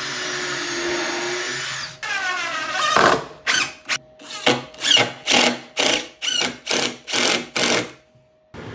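Power drill driving screws. It runs steadily for about two seconds, then in a string of short trigger bursts, about two a second, and stops just before the end.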